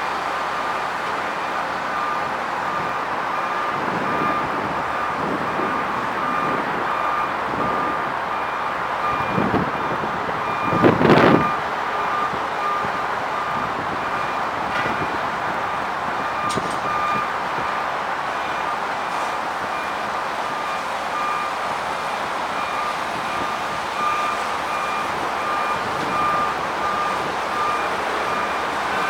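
Heavy construction vehicle's reversing alarm beeping steadily at an even pace over a continuous machinery rumble, with a short louder burst of noise about eleven seconds in.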